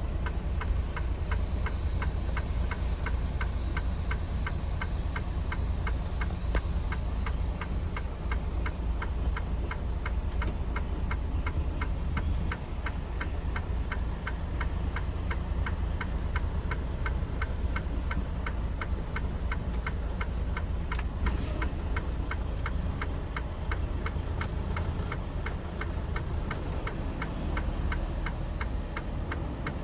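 Semi-truck cab noise: a steady low diesel engine rumble with a regular sharp ticking, about three ticks a second.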